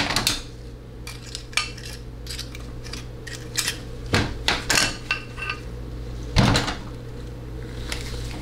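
Screwdrivers and picks clinking and scraping against a TH400-family transmission valve body and the steel pan under it, as the 1-2 shift valve is worked out of its bore: an irregular run of sharp metallic clicks, the loudest about six and a half seconds in. The valve hangs up a little in its bore.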